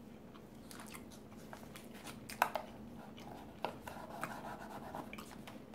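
Faint scattered clicks and light rustles from small tabletop handling, as a straw is worked in a paper cup and a napkin is handled. There are a couple of sharper clicks about two and a half and three and a half seconds in.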